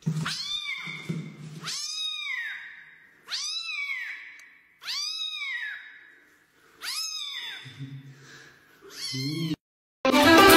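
Tabby kitten meowing five times, high-pitched calls that each rise and fall in pitch, spaced about a second and a half apart.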